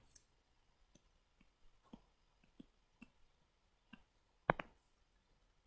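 Faint, irregular clicks and taps of a stylus on a tablet screen while writing, the loudest about four and a half seconds in.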